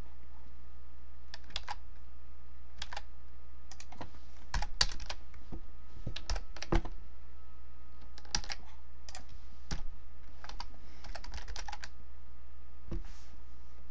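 Typing on a computer keyboard: irregular bursts of keystrokes with short pauses between, over a steady low hum.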